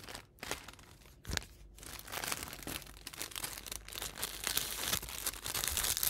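Crinkling and rustling of a plastic packet as fly-tying material is handled. A few light clicks come first, then continuous crinkling from about two seconds in, loudest near the end.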